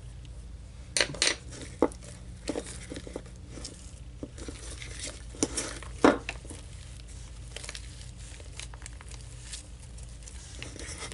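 Thick, sticky homemade slime of glue, shaving cream and contact solution being stirred with a stick in a wooden bowl, giving irregular clicks and scrapes against the bowl. After a few seconds the slime is squeezed and kneaded by hand, with fewer, softer clicks. A steady low hum runs underneath.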